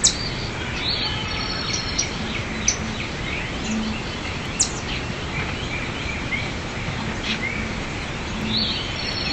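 Small birds chirping, short high calls and down-sweeping squeaks scattered through, over a steady outdoor hiss.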